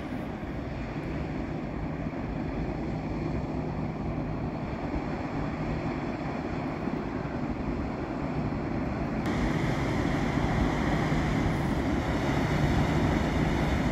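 Inland cargo barge's engine, a steady low hum that grows gradually louder as the vessel approaches, with wind noise on the microphone.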